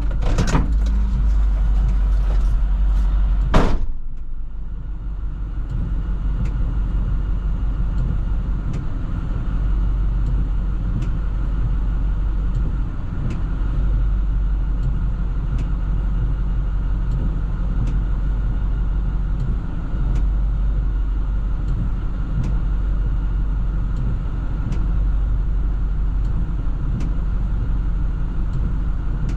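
A truck door slams shut about three and a half seconds in, after a click just at the start. Then the plow truck's engine idles steadily with a low rumble, and a faint tick comes about every second and a half.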